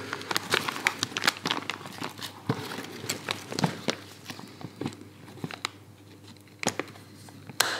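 Clear polyethylene film crinkling and crackling as it is handled and pressed against the back of a plastic bumper: a run of small irregular crackles, busier in the first half, with a sharper click near the end.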